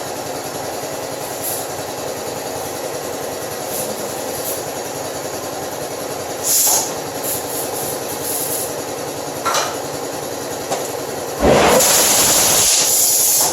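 A steady machine hum with short hisses of compressed air, then a loud rush of air lasting about two seconds near the end, during tire work.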